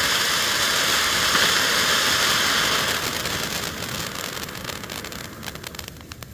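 Weco Ocean of Lights ground fountain firework spraying sparks with a steady hiss. About three seconds in, the fountain starts burning out: the hiss fades away and scattered sharp crackles come through.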